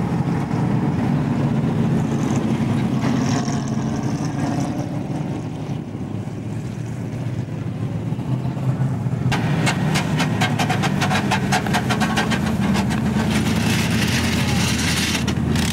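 Stock car engines running steadily at low speed. About nine seconds in, a fast run of sharp clicks lasts about three seconds, followed by a hiss.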